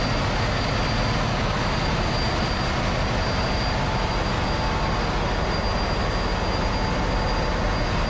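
Steady, loud engine-room machinery noise from running Hyundai Himsen 6H25/33 four-stroke six-cylinder marine diesel generators, with a thin, steady high whine over the din.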